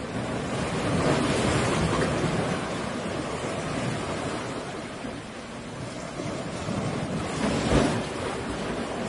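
Sea waves surging and breaking against rocks: a continuous rush of surf that swells about a second in and peaks with a heavier crash near the end.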